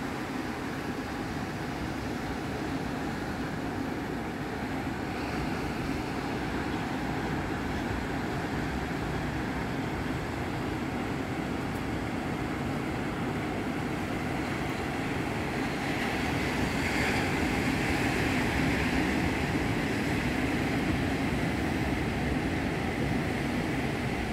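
Ocean surf breaking on a sandy beach: a steady rushing noise that grows louder for a few seconds about two-thirds of the way through.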